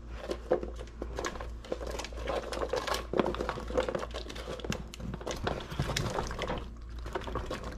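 Carrot slices and whole jalapeños tumbling from a woven bamboo basket into a stainless steel pot of pickling liquid: a run of irregular clicks and knocks as they drop in and knock against the pot and basket.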